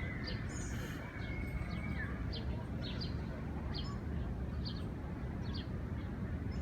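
A small bird chirping over and over, short high chirps about two a second, over a steady low outdoor background rumble.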